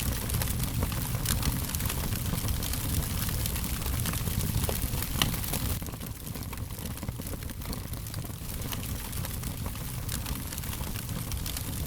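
Fire crackling: many small sharp pops and ticks over a low, steady rumble, with one louder pop about five seconds in.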